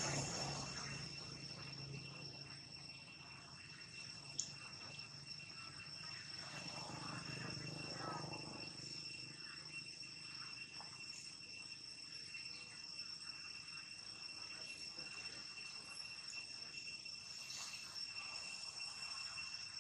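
Steady, high-pitched insect chorus holding two unchanging tones, with a single sharp click about four seconds in.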